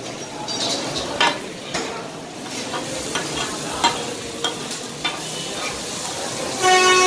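Kata-kat sizzling in butter on a flat iron griddle as metal blades and a fork-like metal scraper clack and scrape across the hot steel, the clicks coming irregularly over the sizzle. A short pitched honk sounds near the end.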